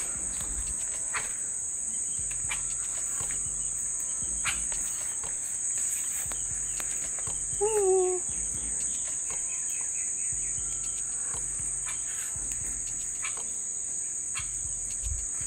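Steady high-pitched drone of insects, with scattered light clicks and rustles of bean plants being handled as pods are picked by hand, and a brief voiced sound about eight seconds in.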